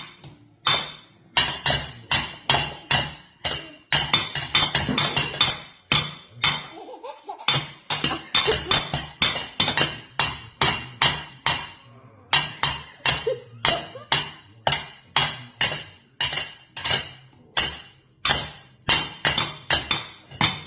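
Metal pot lids banged over and over, each stroke a bright clang with a ringing tail, about two to three a second with a fast flurry a few seconds in and a couple of short pauses.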